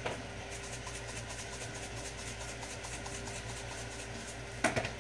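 Shrimp and broccoli stir fry sizzling in a wok on high heat, faint crackles over a steady low hum. A sharp clack of a utensil or pan near the end.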